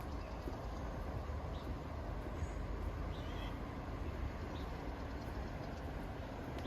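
Outdoor ambience: a steady low rumble and hiss, with faint short bird chirps a few times.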